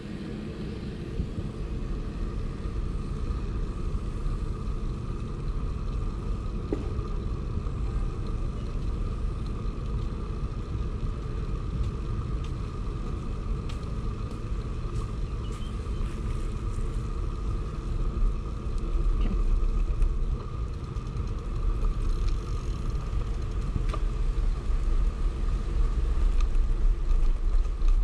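Wind rumbling over the microphone of a camera riding on a moving bicycle, mixed with steady rolling noise and a faint steady hum. The rumble turns stronger and gustier about two-thirds of the way through.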